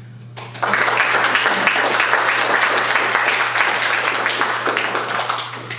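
Audience applause: many hands clapping in a room. It starts about half a second in, holds steady and stops suddenly near the end.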